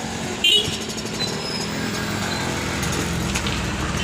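A motor-vehicle engine idling steadily, with a brief sharp high-pitched squeak about half a second in.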